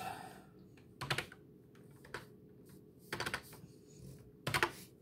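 Typing on a computer keyboard: four short bursts of keystrokes with pauses between them.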